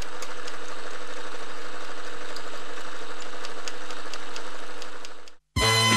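A machine running steadily: an even whirring hum with faint, scattered ticks, which stops abruptly about five and a half seconds in.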